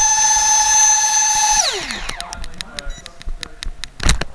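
High-pitched whine of a model missile's motor, held steady and then falling sharply in pitch as it spins down about a second and a half in. Scattered clicks follow, and there is a loud thump near the end.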